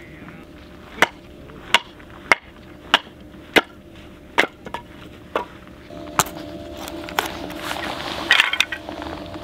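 A series of sharp knocks, about ten of them, roughly one every two-thirds of a second, then a brief ringing clatter near the end.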